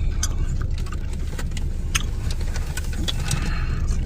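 Steady low hum of an idling car engine, with scattered light clicks and taps over it.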